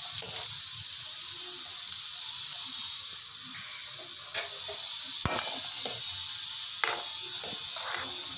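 Cashews frying in hot ghee in a metal pan: a steady high sizzle, with a few sharp clicks of a metal spoon striking the pan as they are stirred.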